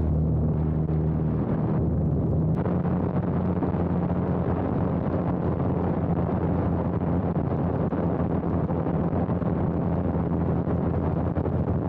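A biplane's engine running steadily under heavy wind rush on a microphone mounted outside the airframe, during an inverted spin. The rush of air grows louder about two seconds in.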